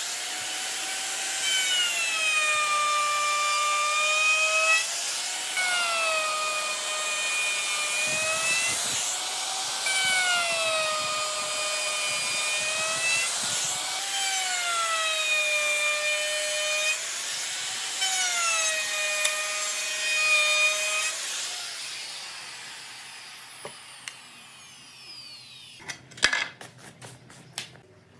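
Handheld DongCheng plunge router whining at full speed while cutting a series of parallel grooves across a wooden board; its pitch sags each time the bit bites into the wood and recovers between passes. About three-quarters of the way through it is switched off and winds down with a falling pitch, followed by a few sharp clicks.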